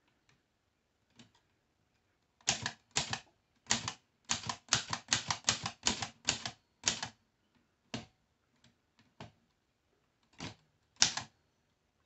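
Keys of a 1924 Corona Three folding typewriter being struck one at a time at a slow, two-finger pace, each typebar snapping against the platen. About ten strikes come in a row a couple of seconds in, then a pause with a few faint clicks, and two more strikes near the end.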